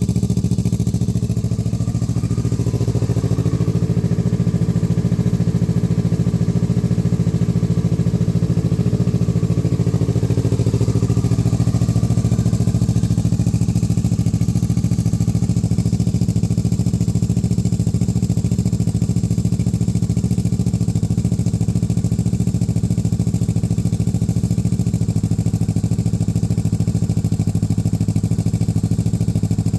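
2017 Kawasaki Z650's parallel-twin engine idling steadily on a cold start, through a titanium Yoshimura R11 full exhaust.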